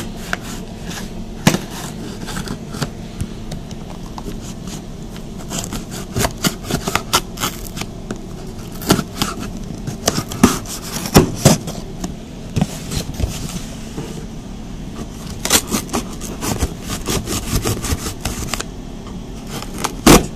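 Cardboard shipping box being cut open and handled: irregular scrapes, crackles and sharp knocks of cardboard and packaging, over a steady low hum.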